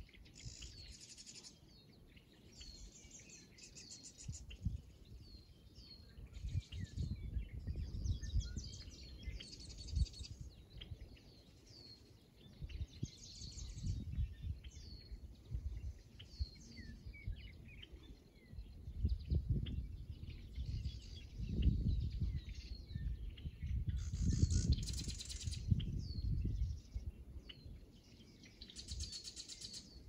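Several songbirds calling and singing in a marsh: short whistled notes that drop in pitch, repeated over and over, with a few dense buzzy trills, one about a second in and others near the end. Under them, a low gusty rumble of wind on the microphone comes and goes, strongest in the second half.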